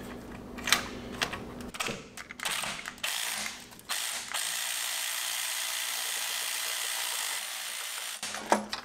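Cordless battery ratchet backing out a starter mounting bolt: a few clicks and knocks as the tool is fitted to the bolt, then the ratchet runs steadily for about four seconds and stops abruptly.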